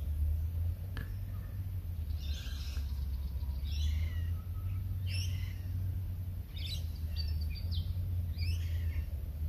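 Birds calling in short phrases, about one a second, over a steady low rumble.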